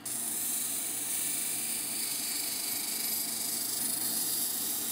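Tiger eye stone ground against a wet 80-grit sintered diamond wheel on a running lapidary cabbing machine: a steady, loud grinding hiss.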